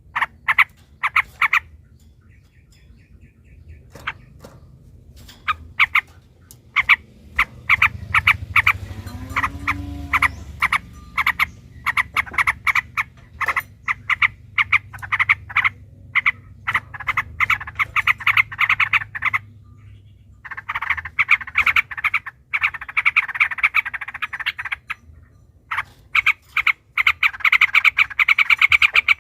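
Yellow-vented bulbuls (trucukan) calling in fast, chattering trains of short notes, building into long unbroken rattling rolls in the second half. A low hum runs underneath for several seconds near the middle.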